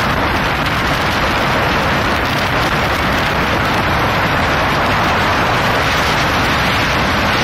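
Thames Clipper catamaran ferry under way: a steady, even rush of engine and water noise.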